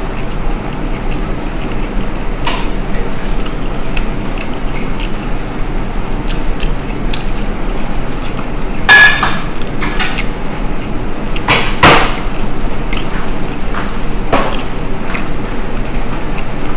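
Close-miked eating sounds: a person chewing and smacking while eating by hand. Two sharper clacks stand out, about nine and twelve seconds in.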